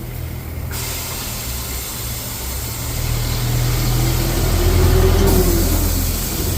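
Workshop machinery running with a low hum that grows louder partway through, over a steady hiss of air that cuts off abruptly about five seconds in.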